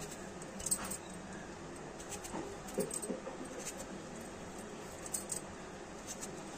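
Faint, scattered clicks and light metallic clinks of a steel fork's tines pricking a hand-held Indian gooseberry (amla).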